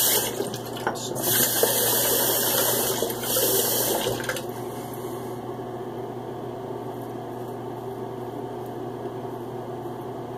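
Water running from a tap in two stretches over the first four seconds or so, then shut off, leaving a steady low hum.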